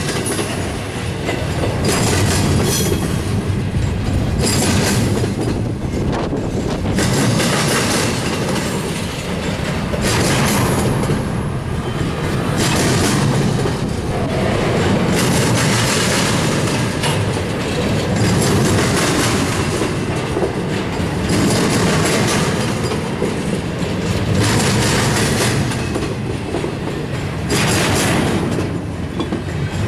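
Double-stack container well cars of a freight train rolling past, their wheels rumbling and clacking on the rails. The noise swells and eases about every two and a half seconds.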